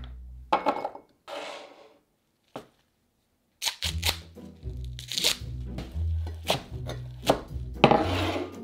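Background music with short rustling tears of curly kale leaves being stripped from their stems, and a few sharp knife chops on a wooden cutting board. The sound drops out for about two seconds near the start.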